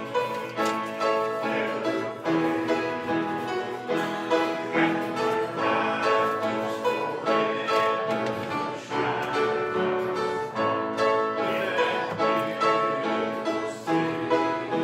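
Music with instruments holding notes over a steady beat.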